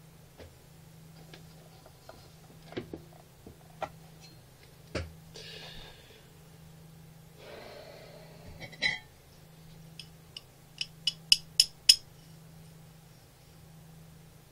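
Handling noise of a homemade jaw harp blank: scattered small clicks and rustles, then about six sharp metallic clinks in quick succession as the metal frame and reed knock together. A steady low hum runs underneath.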